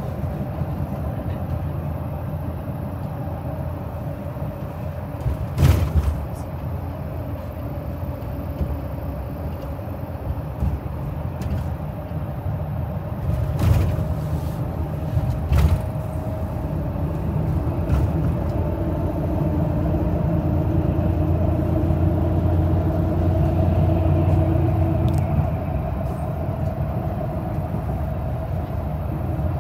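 Coach bus driving, heard from inside the cabin: a steady engine drone and road rumble. There are sharp knocks about six seconds in and twice more around the middle, and the engine grows a little louder past the middle.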